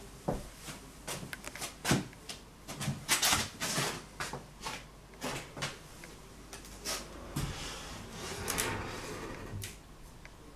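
A run of irregular knocks and clatters, with a longer scraping stretch from about seven and a half to nine and a half seconds in.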